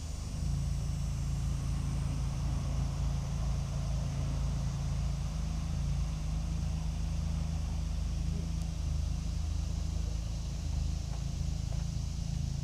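1947 Ford 8N tractor's engine turning over on the starter motor, a steady low drone that never catches and fires, the sign of the no-start fault after the distributor work.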